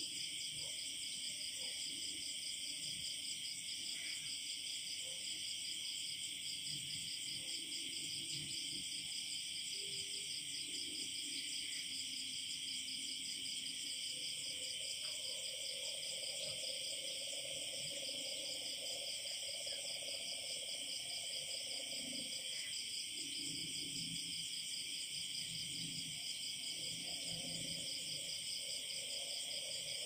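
Night chorus of crickets: a dense, steady, high-pitched pulsing that never stops, with fainter low frog calls coming and going underneath, most noticeable around the middle of the stretch.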